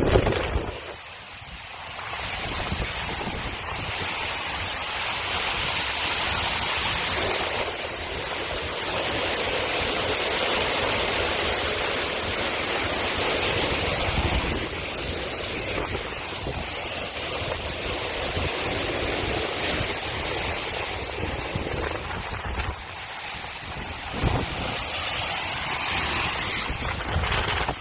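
Steady rushing noise of hurricane wind and water, dropping away briefly about a second in and again around twenty-three seconds.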